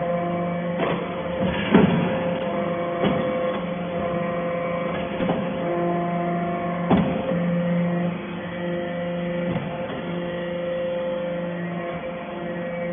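Hydraulic baling press for steel wire chips running with a steady droning hum whose tones cut in and out, and a few sharp metallic knocks, the loudest a little under two seconds in and another about seven seconds in.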